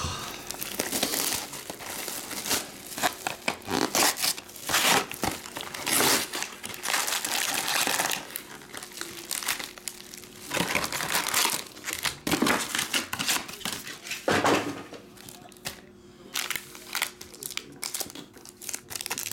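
Plastic shrink-wrap being torn off a cardboard trading-card box and crinkled, then foil card packs handled and stacked, in a run of crinkling and rustling with several sharper tearing strokes. It grows quieter over the last few seconds.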